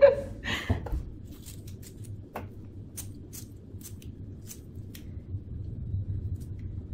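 A handheld lighter being clicked over and over: about ten short, sharp clicks at uneven spacing over a few seconds.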